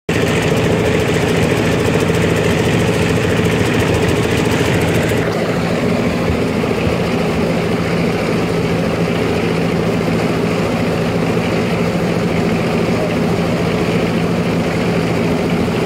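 Hyundai 220LC crawler excavator's diesel engine running steadily as the bucket digs, a constant low hum with a high hiss on top that drops away about five seconds in.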